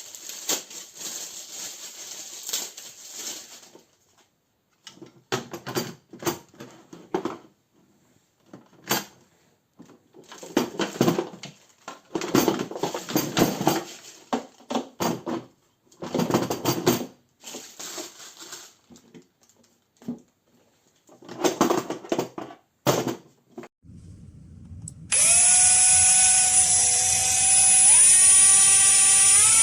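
AEG BSB18CBL 18-volt cordless impact drill running in a string of short bursts. Near the end its motor gives a much louder steady whine that steps up in pitch a few times.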